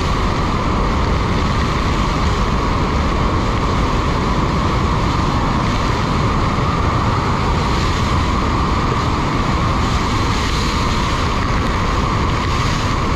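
Steady, loud rush of Bridal Veil Falls at close range, with its spray and wind buffeting the microphone.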